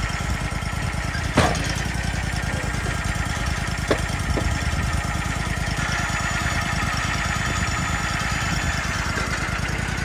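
Wood-Mizer LT40 Wide portable bandsaw mill running steadily, its engine giving a rapid low throb. A sharp knock comes about a second and a half in, and two lighter clicks follow around four seconds in.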